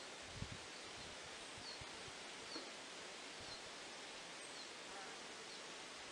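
Outdoor nature ambience: a steady hiss with faint, short high chirps about once a second and a few soft low thumps, the loudest about half a second in.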